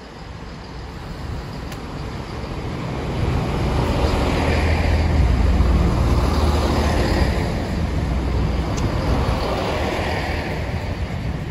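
GWR Class 166 Turbo diesel multiple unit pulling out of the station, a low engine and wheel rumble that grows louder over the first few seconds, peaks around the middle and then holds steady.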